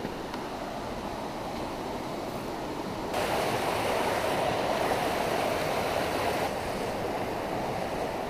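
Creek water rushing over rocks, a steady noise that grows suddenly louder about three seconds in and drops back down about three seconds later.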